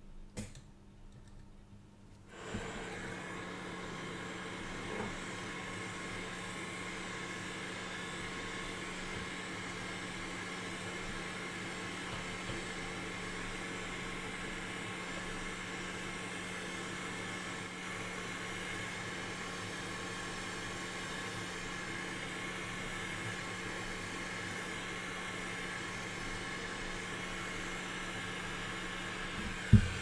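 Hot-air rework station blowing steadily on a memory chip to melt its solder for removal, starting about two seconds in over a low steady hum. A sharp click near the end.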